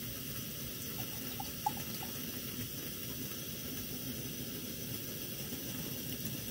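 Water poured from a bottle into the aluminium lower chamber of a Bialetti moka pot, over the steady hiss of a Coleman 400 liquid-fuel stove burning. A few small clicks about one and a half seconds in.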